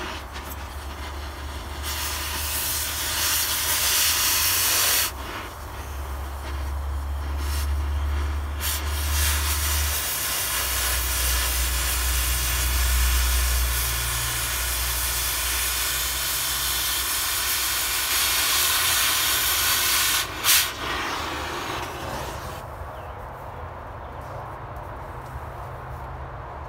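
Oxy-fuel cutting torch hissing loudly as its cutting jet burns through the steel of a truck frame. The hiss starts about two seconds in, eases for a few seconds, then runs steady until it cuts off near twenty seconds in, over a low rumble.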